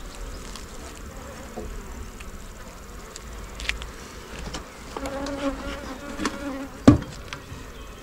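Honey bees buzzing around an open hive, with a steady pitched hum for a second or so past the middle as a bee flies close. There is a single sharp knock near the end.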